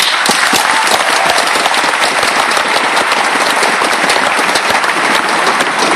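Large crowd applauding: dense clapping that starts suddenly and holds steady and loud.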